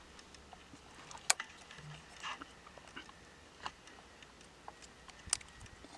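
Scattered small clicks and taps from hands working the orange airbag connector clips at the steering wheel, with a sharper click about a second in and another near the end.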